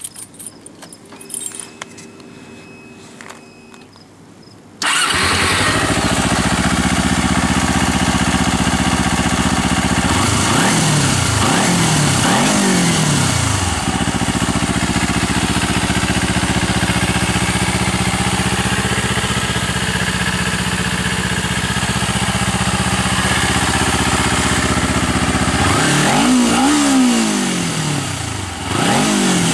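2009 Kawasaki Ninja 250R's parallel-twin engine on its stock exhaust, starting about five seconds in and settling into a steady idle. Around the middle it is revved three quick times, and twice more near the end, each rev rising and falling back to idle.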